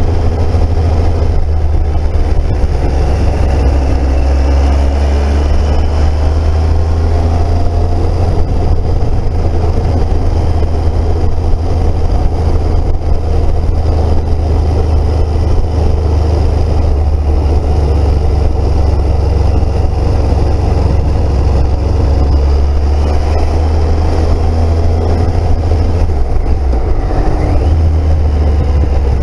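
Triumph Speed Triple's three-cylinder engine running on the move, its note rising and falling a few times with the throttle, over a steady heavy low rumble of wind and road noise.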